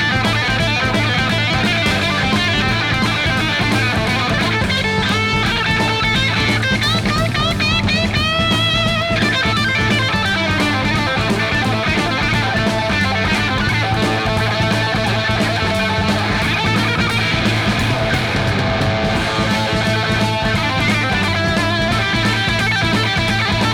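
Hard rock played from a vinyl LP: an instrumental passage with a fast lead electric guitar over drums and bass. The guitar plays quick runs and bent notes.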